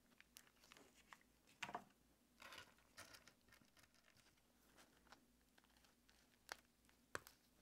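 Faint, scattered clicks and brief rustling of small plastic scrap pieces being picked up and pressed onto a foil-covered, hot-glued base by gloved hands, with a couple of sharper clicks near the end.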